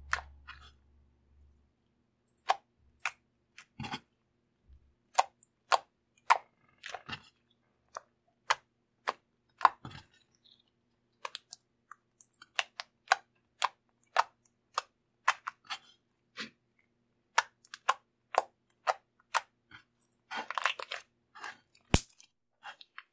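Slime mixed with makeup being squeezed and kneaded by hand, giving sharp clicking pops at irregular intervals, with a denser burst of crackling near the end.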